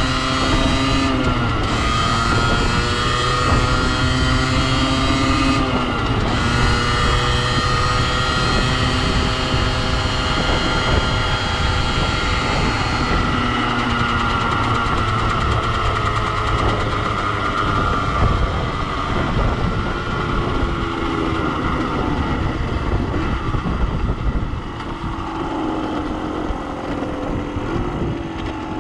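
Beta RR50's 50cc two-stroke engine at high revs under hard acceleration, its rev limiter disconnected. The revs drop sharply and climb again twice in the first six seconds as it shifts up. It then holds high revs before slowly dropping away as the bike slows, with wind rush over the microphone throughout.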